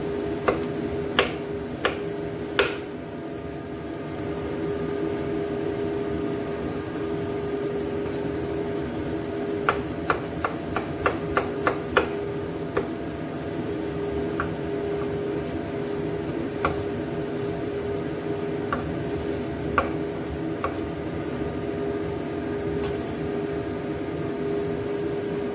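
Kitchen knife chopping ginger on a wooden cutting board: a few separate knocks at the start, a quick run of about seven chops around the middle, then a few scattered ones. A steady hum runs underneath.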